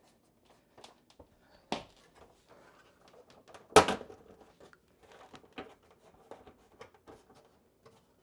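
Scattered light clicks, taps and handling noise of hands and a screwdriver on the exercise bike's plastic side cover, with two sharper knocks, the louder one about midway.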